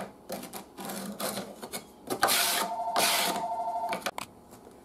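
Light clicks and handling knocks, then a small electric motor whirs for about two seconds, starting a little past two seconds in and stopping near the end.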